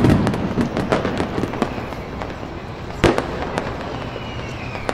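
Fireworks going off: a loud burst's boom fades at the start, then scattered crackling pops follow, with a sharp bang about three seconds in. A faint whistle glides downward near the end.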